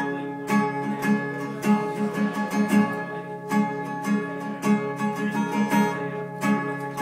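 Acoustic guitar strumming a steady, rhythmic chord pattern with no singing.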